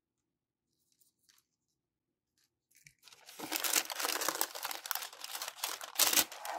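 Near silence for about three seconds, then parchment paper crinkling and rustling as a hand grips and handles it.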